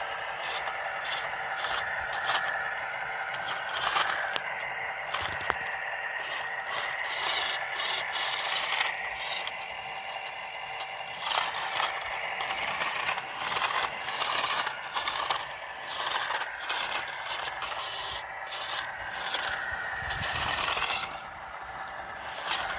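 RC concrete mixer truck's small electric motor and gearbox whining, the pitch rising and falling with the throttle, with scraping and clicking as its tyres crawl over rough off-road ground.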